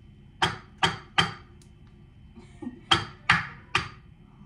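A toddler tapping a raw egg against a hard surface to crack its shell: six sharp knocks in two quick groups of three, the second group louder.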